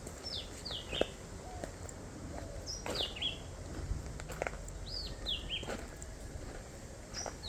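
A bird calling outdoors: short notes that slide downward, given in quick groups of three and repeated about every two and a half seconds, with a few faint clicks between.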